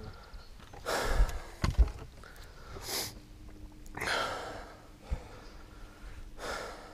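Several short, heavy breaths close to the microphone, a second or two apart, with a couple of light knocks between them.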